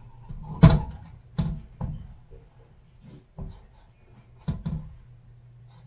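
A run of knocks and bumps from a frame hung on the wall being handled and shifted against it, about six in all, the loudest about a second in.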